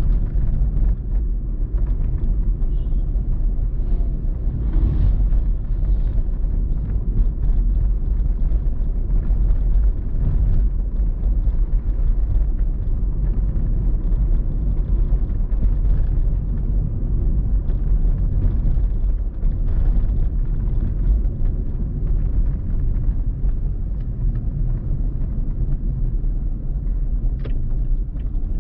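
Car driving on city streets, heard from inside: a steady low rumble of road and engine noise.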